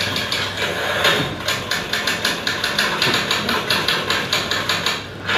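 Rapid, even mechanical clacking of an old office machine with typewriter-style keys, heard as a TV-ad sound effect through the hall's speakers.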